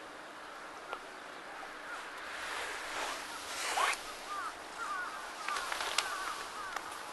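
Outdoor ambience: a hiss that swells and fades in the middle, then a run of short chirps, with a couple of sharp clicks.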